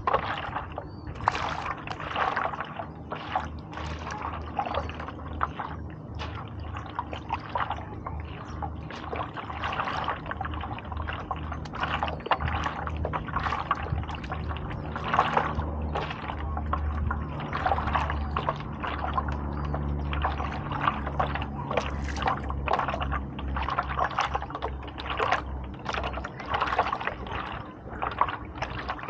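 Stand-up paddleboard paddle dipping and pulling through water, with splashes and drips in a steady rhythm about once a second, over a low steady hum.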